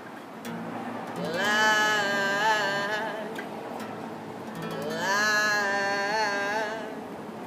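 Acoustic guitar playing under a singing voice that holds two long, wavering notes, the first starting about a second in and the second near the middle.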